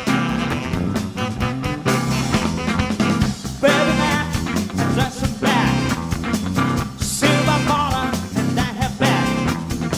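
A live band playing an upbeat swing-style number with electric guitar, bass and drums on a steady beat, and a melodic lead line above.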